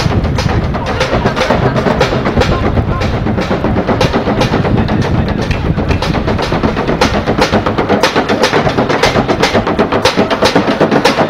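Bucket drummer beating a makeshift kit of plastic buckets, large white plastic water jugs and metal pans with drumsticks: a fast, steady, dense rhythm of hard strikes.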